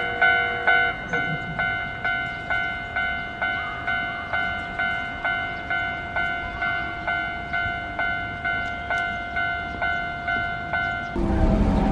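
A ringing bell-like tone struck about twice a second in a steady, even rhythm, each stroke fading before the next. Near the end it gives way abruptly to a loud, steady rumbling noise.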